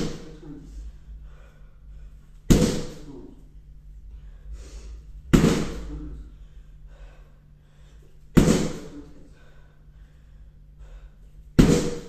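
Right-leg kicks landing on a padded Blitz kick shield held against the body: four loud smacks about three seconds apart, each fading briefly in the bare room.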